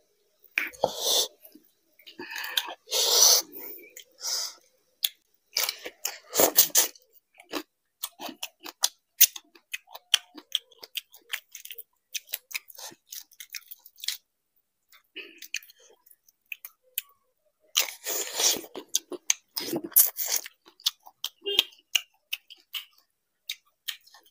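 Close-miked eating: a large prawn in malai curry pulled apart by hand and chewed, with many small wet clicks and smacks and a few louder, longer eating sounds near the start and again toward the end.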